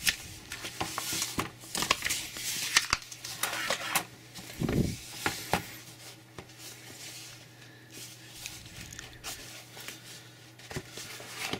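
Hands working open a smartphone's white cardboard retail box: cardboard sliding and rubbing with scattered clicks and taps, busiest in the first few seconds, a soft thump about five seconds in, then quieter scraping.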